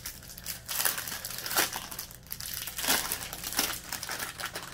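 Packaging crinkling and rustling as it is handled and opened to take out a face mask, in irregular crackly bursts, loudest twice in the middle.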